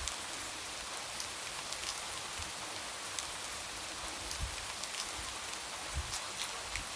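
Light rain falling steadily, with scattered individual drops tapping sharply against a window.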